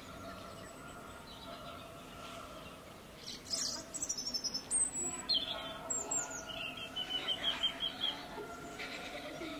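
Small birds chirping: a burst of high, quick chirps about three seconds in, followed by a fast run of repeated notes, over a faint steady background hum.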